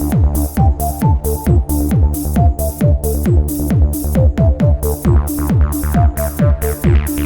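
Electronic dance music in trance style with a steady fast beat, about three hits a second, each with a falling bass note.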